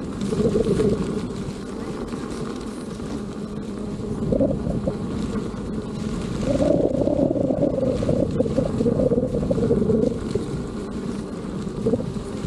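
Wind buffeting the microphone of a camera on a moving electric unicycle, with a low rushing rumble. It gusts louder about half a second in and again for several seconds from about six and a half seconds.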